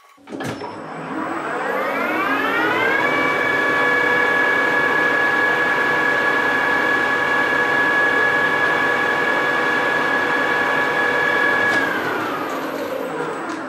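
Precision Matthews PM 1440TL metal lathe spindle spinning up with a collet chuck: a whine that climbs in pitch over a couple of seconds, runs steady for about nine seconds, then winds down near the end.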